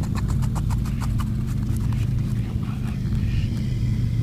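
Rapid, irregular clicking of plastic threads as a PVC adapter is turned by hand into the poly water tank's outlet fitting, dying away after about two and a half seconds, over a steady low hum.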